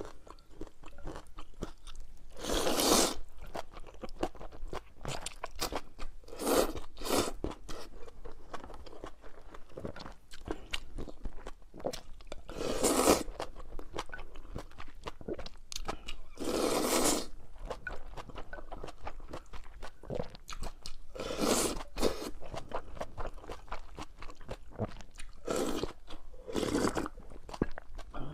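A person eating close to the microphone: steady wet chewing and crunching, with louder bites or mouthfuls every few seconds.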